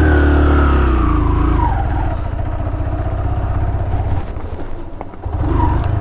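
Motorcycle engine running: the revs fall away about a second in and it settles to a low, pulsing run, picking up briefly again near the end.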